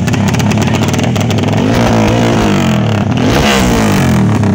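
Several motorcycle engines revving at once, their pitches rising and falling and crossing one another; one climbs sharply about three and a half seconds in.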